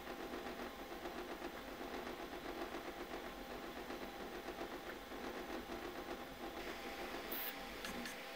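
Artillery Sidewinder X2 3D printer printing honeycomb infill: its stepper motors hum in several tones that flutter quickly as the print head changes direction rapidly along the X and Y axes, with the cooling fans running underneath. A brief hiss comes near the end.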